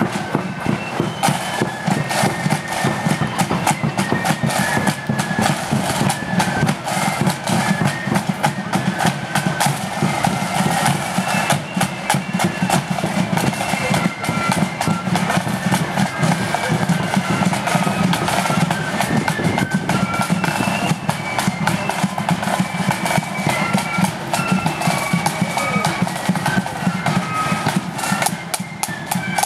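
A marching band playing in the street: a high melody over side drums and bass drum, with drum rolls.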